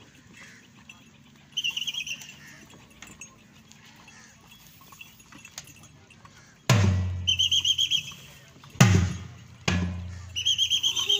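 A trilling whistle blown in short blasts, first about one and a half seconds in, then twice more in the second half. From about two-thirds in, loud sudden thumps each leave a deep low boom.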